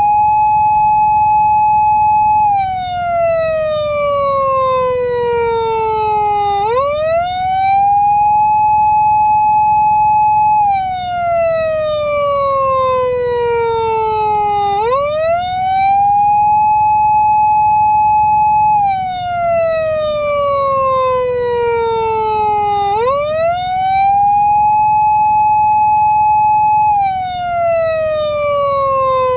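PATLITE SAP500 siren amplifier sounding a Japanese police-car wail through its loudspeaker, on an eight-second cycle. Each cycle climbs quickly to a high tone, holds it for a couple of seconds, then falls slowly over about four seconds before climbing again; the climb comes three times.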